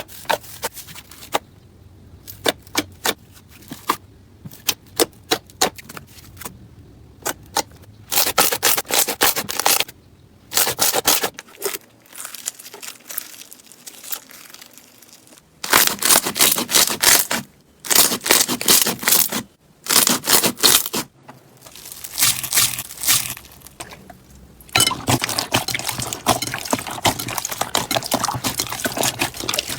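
Slime being squeezed and worked by hand, giving first a string of sharp crackling pops, then several bursts of dense crackling and crunching, the longest near the end.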